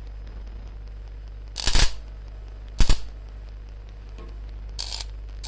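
Glass CO2 laser tube crackling and snapping as the laser is fired: three sharp crackles, about a second and a half, three and five seconds in, over a steady low hum. It sounds like high-voltage arcing, and the owner takes the tube for faulty.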